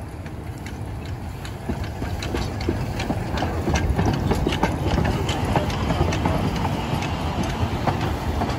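Narrow-gauge train running past: a low rumble with many sharp clicks and knocks, growing louder over the first few seconds and then holding steady.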